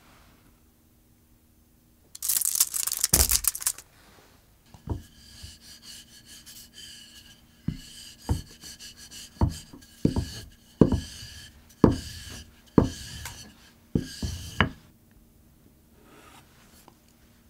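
Wooden rolling pin rolling a thin puff-pastry triangle on a slate board: a faint rolling rumble with sharp knocks roughly once a second as the pin goes back and forth. Near the start there is a short scraping noise.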